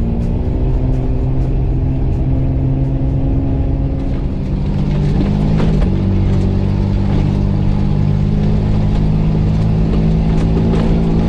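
Mercedes G-Class three-litre diesel engine running steadily under load, heard from inside the cabin, with scattered knocks as the vehicle drives over a rough track. About five seconds in, the engine note dips and steps to a new pitch, and it runs a little louder after that.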